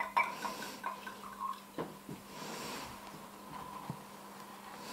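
Liquor glugging from a bottle into a small glass for about the first second and a half, followed by a couple of sharp clicks.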